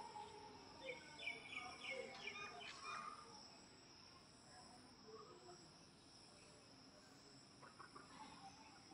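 Faint, steady high-pitched chorus of insects, crickets by the sound, with a few short chirps over it in the first three seconds.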